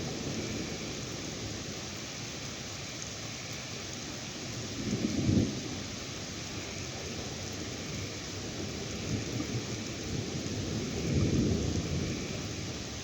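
Steady rain falling during a thunderstorm, with low thunder rumbling twice: once about five seconds in and again near the end.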